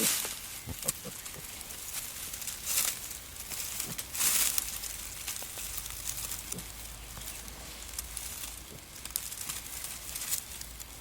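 Wild boar sow and piglets moving through dry forest litter: intermittent rustling and crackling of leaves and twigs, with a few louder rustles near the start and about three and four seconds in, and small scattered snaps.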